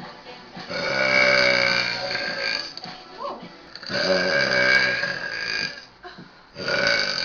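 A young woman burping: two long, drawn-out belches of about two seconds each, with a third starting near the end.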